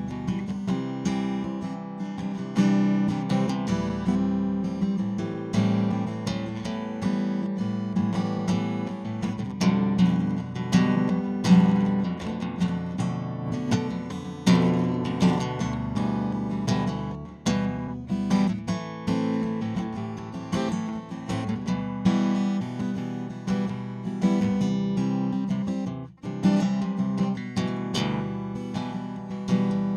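Acoustic guitar music, strummed and plucked chords playing steadily, with a brief break about 26 seconds in.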